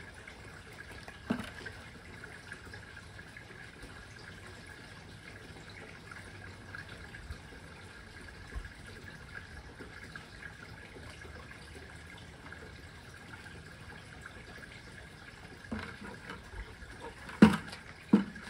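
Water trickling steadily, with a faint steady whine beneath it. Two sharp knocks near the end, less than a second apart, the first one loud.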